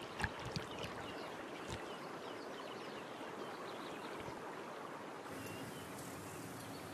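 Faint, steady outdoor river ambience, a soft wash of water, with a few sharp ticks in the first second. About five seconds in, the background shifts to a slightly brighter outdoor ambience with faint high chirps.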